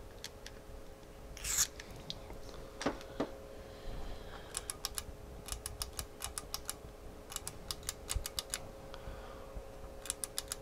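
A short hiss of aerosol contact cleaner sprayed into the oscilloscope's switches, followed by quick runs of small sharp clicks as the switches are worked back and forth to spread the cleaner.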